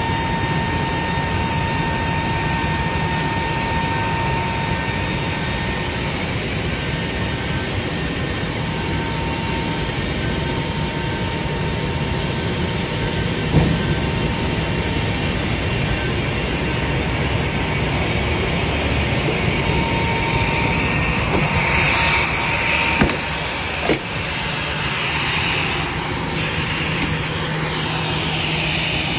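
Steady jet and engine noise on an airport ramp, with a faint steady whine and a low hum. A sharp knock comes about halfway through and another about three-quarters through, and near the end a taxiing airliner passes with a falling pitch.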